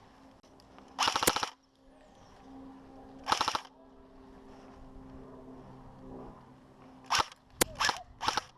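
Airsoft guns firing: two short full-auto bursts of rapid pops, about half a second each, about a second in and again a couple of seconds later, then several sharp cracks and brief bursts near the end.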